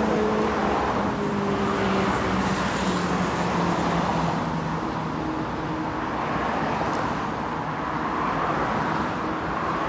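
City street traffic: steady road noise with the hum of passing vehicle engines, one engine's pitch sliding slowly lower in the first few seconds.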